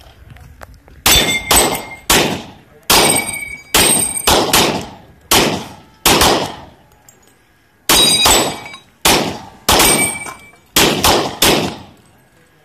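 Rapid handgun fire from two shooters firing at once, with AR500 steel plates on Texas Star spinner targets clanging and ringing as they are hit. About twenty shots start about a second in, come in two flurries with a pause of a second and a half in the middle, and several hits leave a ringing tone.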